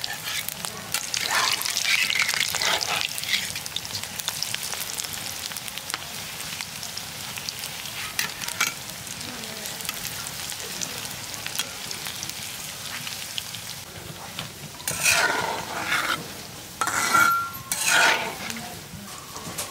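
Battered radish-flower pakoras deep-frying in hot oil in a metal karahi: a steady sizzle, with louder bursts about a second in and again near the end.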